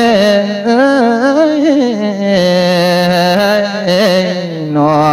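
A Buddhist monk singing a thet lae, the melodic Isan sung sermon, into a microphone: one long melismatic held vowel that wavers and slides between notes, settling on a steady higher note near the end, over a steady low tone.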